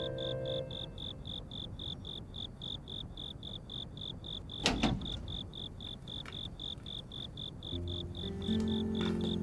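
A cricket chirping steadily, about six pulses a second. A short whoosh about halfway through is the loudest moment, and soft music comes in near the end.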